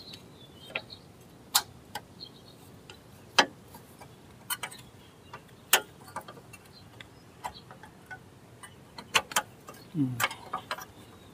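Irregular metallic clicks and knocks of rear drum-brake parts and hand tools being handled and fitted, a dozen or so sharp taps spaced unevenly, with a brief low sound falling in pitch about ten seconds in.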